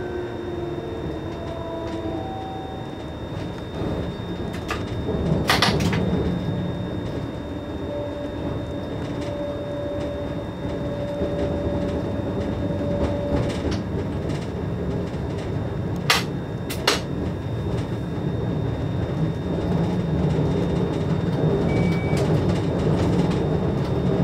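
Cab of an ÖBB Taurus (Siemens ES64U2) electric locomotive running along the line: steady running noise with a faint whine from the electric drive holding one tone for a few seconds in the middle. A sharp clack about five seconds in and two more close together later.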